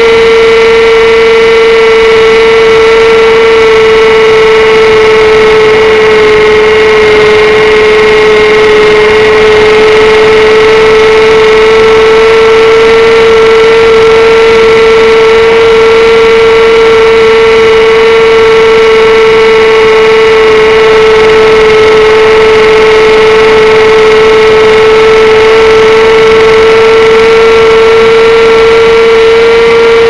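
Electric motor and pusher propeller of an XUAV Skysurfer at steady cruise throttle: a very loud, even hum that sags slightly in pitch for a few seconds, picked up by the onboard camera's microphone.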